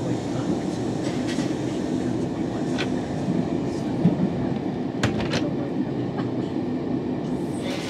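Steady low rumble of a moving railway carriage heard from inside the British Pullman train, with a few short sharp clicks about four to five seconds in.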